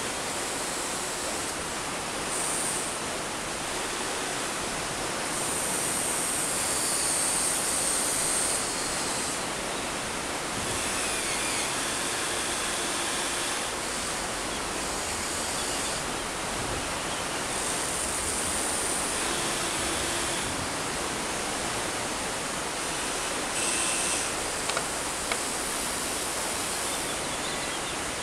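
Steady rushing of river water, with a 1/14 Huina 1593 RC excavator's motors whining in short spells of one to three seconds as its boom, arm and bucket move. Two small clicks near the end.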